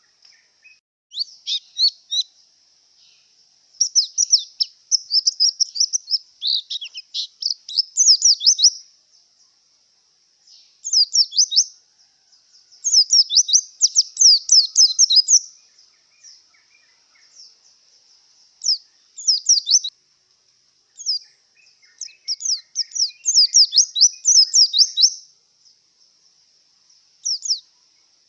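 A white-eye (pleci) singing in the rapid, high-pitched twittering of a bird in breeding condition. The song comes in phrases of a second or two, separated by short pauses.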